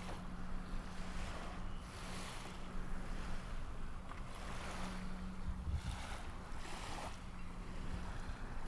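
A boat motor hums steadily on the river, with water noise and wind gusting on the microphone.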